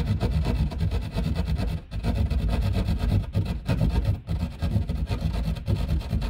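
Hand drywall saw cutting through drywall in quick back-and-forth strokes, with a short break about two seconds in.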